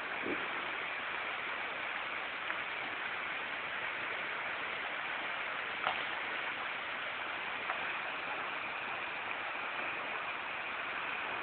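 Mountain waterfall in spate, swollen with muddy storm runoff after a thunderstorm, giving a steady, even rush of falling water.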